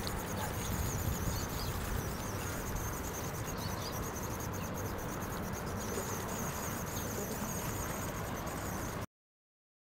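Outdoor ambience dominated by a steady high-pitched insect buzz over a hiss and low rumble, which cuts off abruptly into dead silence about nine seconds in.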